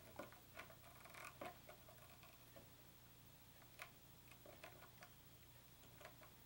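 Faint, irregular little metal clicks of a screwdriver turning a guitar bridge's wood mounting screw down against an Allen wrench that serves as a feeler gauge, setting the bridge height.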